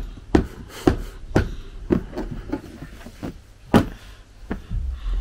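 A series of sharp knocks on a hard surface, about two a second for the first couple of seconds, then sparser, with the loudest knock a little before the end.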